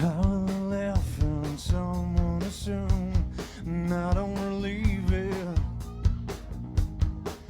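Rock band playing live: a steady drum beat under guitars and a bending melodic lead line.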